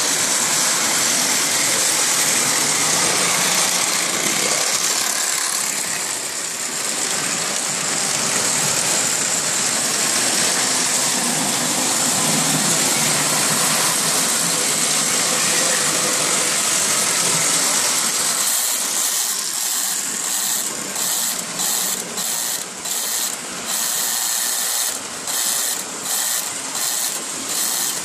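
Lionel O-gauge model trains running on the layout: a steady mechanical whir of small motors and wheels on track. About two-thirds of the way in, the sound turns choppy and uneven.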